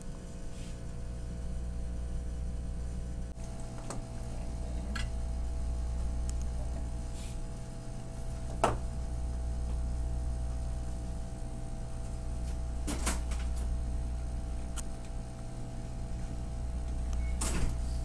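Steady low hum of workbench equipment, with a few light clicks and taps as a component and tools are handled while soldering a part onto a circuit board; the sharpest tap comes about halfway through.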